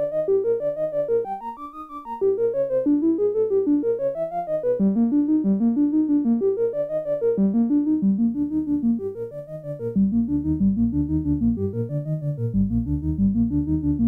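Eurorack modular monosynth (square, sawtooth and sub pulse oscillators through an MS-20-style OTA low-pass filter) playing a repeating loop of notes, each note's tone opening and closing with the envelope on the filter cutoff. The filter cutoff is being turned down, so the sound darkens and the bass grows heavier about five seconds in and again about ten seconds in. The synth has compression, delay and reverb on it.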